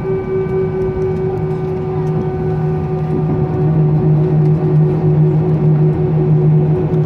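Airbus A320 cabin noise during the landing rollout. The jet engines run down with several steady whining tones, falling slightly in pitch, over a dense rumble. A low hum grows louder about halfway through.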